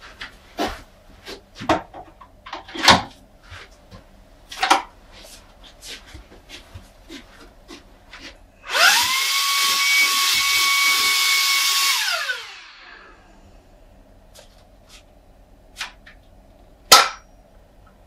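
Shark cordless handheld vacuum cleaner switched on for about three seconds: its motor whines up quickly to a steady high pitch with a rush of air, then spins down. Scattered clicks and knocks come before it, and a single sharp click near the end.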